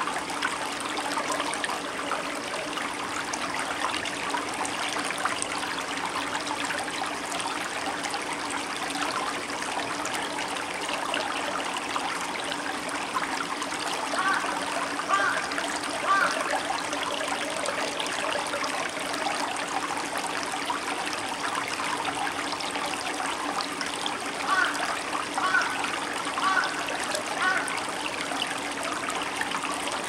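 Shallow stream of clear water running over pebbles and rocks, a steady babbling trickle. A few short pitched calls come through in two brief runs, about halfway and again near the end.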